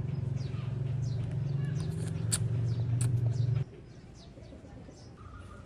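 A steady low engine hum cuts off abruptly about three and a half seconds in. Short high bird chirps sound over it, with two sharp clicks near the middle.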